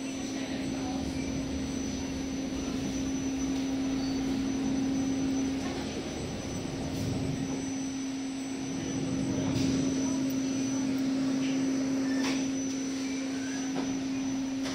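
Steady engine drone of a river passenger boat heard from inside its enclosed cabin, a constant low hum with a wash of noise that swells louder twice, about a third of the way in and again past the middle.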